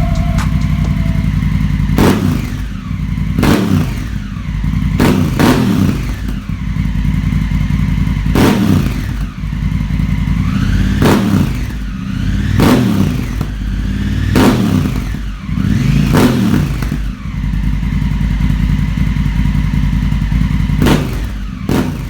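Honda CRF1100L Africa Twin's parallel-twin engine through a Termignoni aftermarket exhaust, idling and revved in about a dozen quick throttle blips, each rising and falling back to idle.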